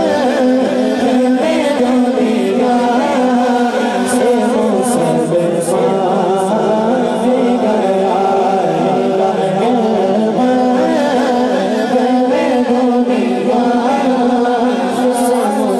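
A boy's solo voice reciting a naat (Urdu devotional poem), sung melodically into a microphone without instruments. A steady low tone is held beneath the wavering melody throughout.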